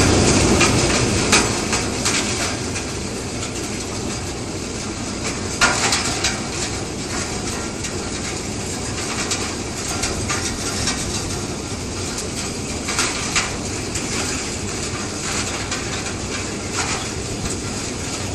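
Wood hammer mill running, grinding logs and branches into sawdust: a loud, steady, dense noise broken by several sharper knocks spread through.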